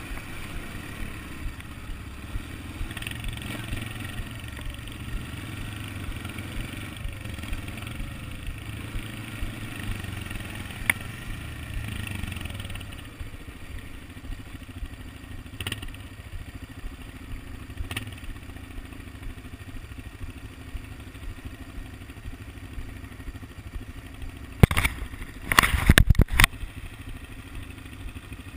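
ATV engine running as the quad rides, dropping to a quieter idle about halfway through. Near the end comes a short burst of loud knocks and rattles.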